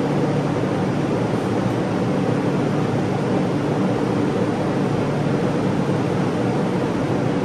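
Steady, unbroken rush of air with a low hum underneath, from spray-painting equipment running while yellow paint goes onto a pinball cabinet.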